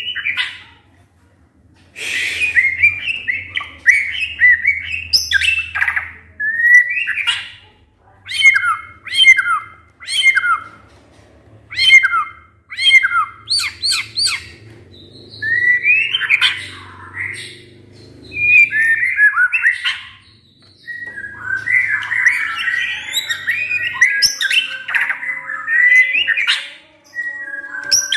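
White-rumped shama singing loudly: a series of short whistled phrases, many sliding down in pitch, with brief pauses between them. Near the end it runs into a denser, rapid warbling chatter.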